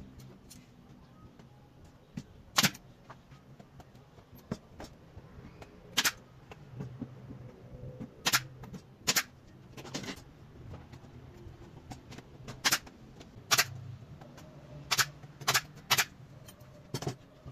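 Pneumatic nail gun firing nails into plywood cabinet panels as they are joined, about eleven sharp single shots spaced irregularly, a second or more apart.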